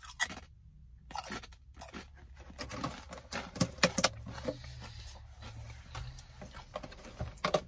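Chewing a crisp potato chip: a run of irregular sharp, crackly crunches, over a faint low steady hum.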